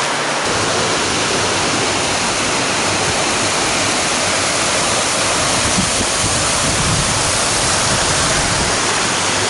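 Steady rush of water tumbling over rocks in a wadi, an even hiss with no breaks.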